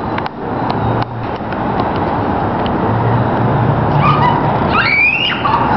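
Steady outdoor rushing noise on a phone microphone, with a low motor hum coming and going. A child's short high-pitched cry rises and falls about four to five seconds in.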